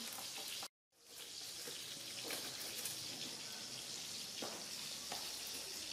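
Whole climbing perch sizzling on a wire grill over a charcoal fire: a steady hiss with a few faint pops. The sound cuts out for a moment just under a second in.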